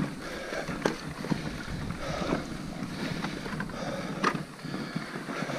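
Mountain bike rolling along a dirt trail: steady tyre and wind noise on the microphone, with a few sharp knocks and rattles from the bike, the loudest just past four seconds in.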